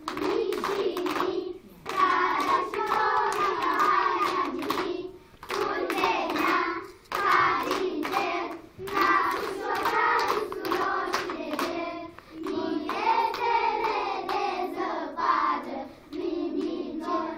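A group of young children singing together in unison while clapping their hands in time.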